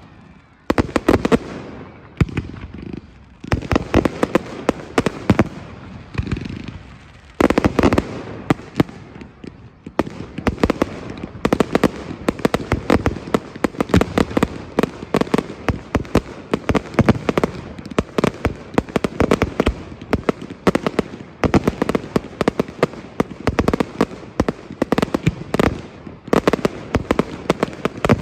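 Aerial fireworks going off in rapid succession: a dense barrage of bangs and crackles, with short lulls in the first seven seconds and then an unbroken run of reports.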